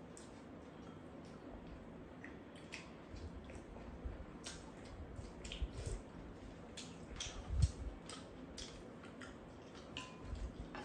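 People eating at a table: scattered light clicks and taps of spoons against bowls and a pan, with soft wet chewing and sipping sounds.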